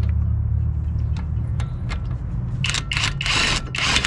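Tightening a CV axle nut: a few sharp tool clicks, then short bursts of an impact wrench hammering near the end, over a steady low hum.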